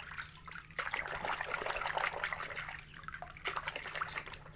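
Water splashing and trickling as a toy box truck is washed, with a couple of brief lulls.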